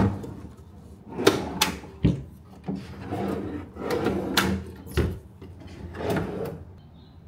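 A run of sharp knocks and clicks with rattling and rustling between them, as of things being handled and moved, dying away about six and a half seconds in.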